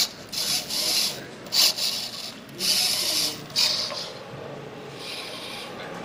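Rubbing and scuffing noises in several short bursts, loudest in the first half, the sort made by hands moving over things on a workbench while the camera is carried.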